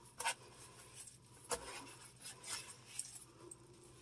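A washcloth wiping and rubbing over a toilet's plastic seat hinges and porcelain tank, in a few short scrubbing strokes; the loudest come near the start and about one and a half seconds in.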